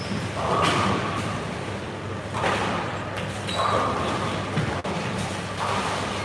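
Tenpin bowling alley in play: balls rolling down the lanes with a low, steady rumble, and pins crashing on nearby lanes about four times, each crash lasting about a second.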